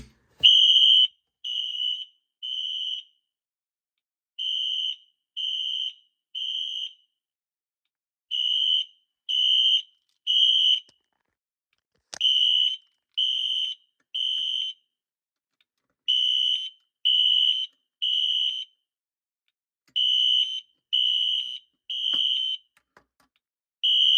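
Fire alarm horn sounding the code-3 (temporal-3) evacuation pattern: three high-pitched blasts of about half a second, a pause, then three more, repeating about every four seconds. A single click is heard about halfway through.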